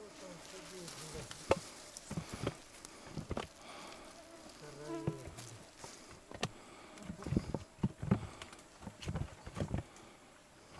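A fly buzzing close by, its pitch wavering as it moves, among irregular knocks and rustles of handling.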